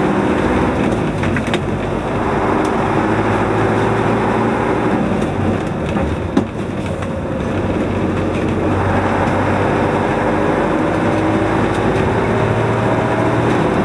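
Fire engine's engine heard from inside the cab, pulling along the road. Its pitch climbs over a few seconds, breaks off and climbs again a couple of times, as it accelerates through the gears.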